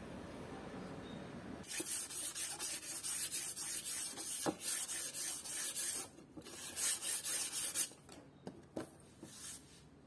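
Sandpaper rubbed along a pine wood strip in quick, light back-and-forth strokes, smoothing off raised wood fibres. It starts about two seconds in, pauses briefly around six seconds, and stops near eight seconds, with a few scattered strokes after.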